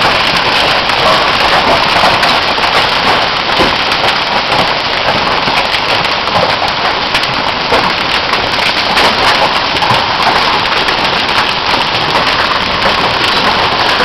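Large hailstones, some as big as eggs, falling with heavy rain and hitting the ground and nearby surfaces. It is a loud, dense, steady hiss with scattered sharper hits.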